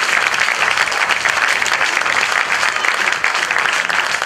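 Audience applauding in a hall, a dense, steady clapping.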